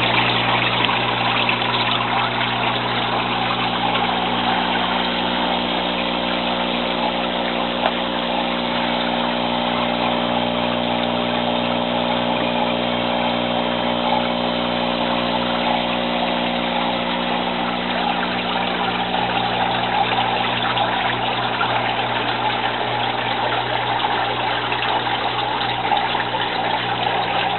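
Steady electric hum of an aquaponics water pump, with water splashing and trickling into an IBC tote tank.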